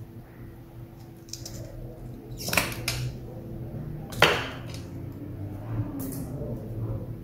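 A few sharp clacks of small hard parts knocked down on a desk while a battery cell and its protection board are desoldered: two close together about two and a half seconds in, and a louder single one just after four seconds.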